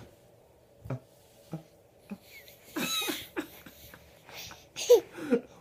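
A baby's short fussing sounds: a high squeal a little before halfway, then brief whimpering cries near the end, with a few soft knocks early on.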